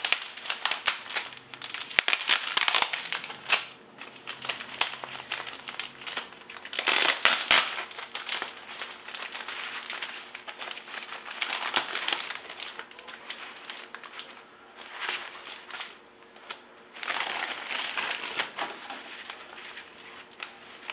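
Bubble wrap packing being handled and unwrapped, crinkling in several louder bursts with short pauses between.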